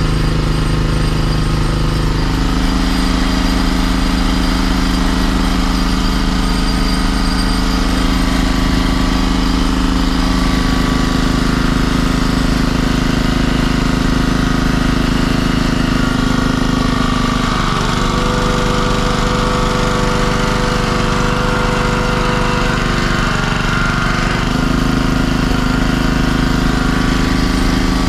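Small engine of a Lukas hydraulic power unit running steadily, driving the hydraulic pump for a rescue cutter; its note steps up or down a few times.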